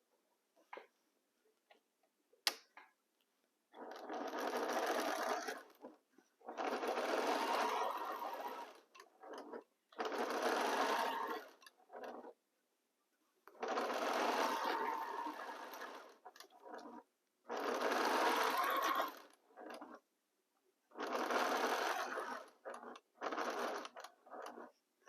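Sewing machine stitching a seam in short runs of about two seconds, stopping and starting seven times. A single sharp click comes before the first run.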